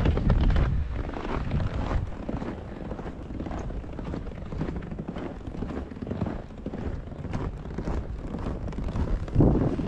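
Wind buffeting the microphone with a low, uneven rumble, over soft crunching footsteps in fresh snow. The rumble surges louder just before the end.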